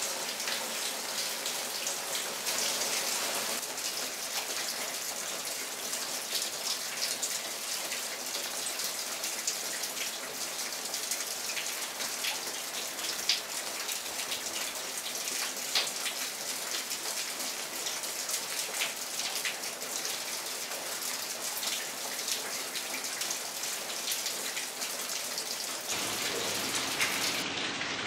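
Steady rain falling, with a scatter of sharp ticks from individual drops landing close by.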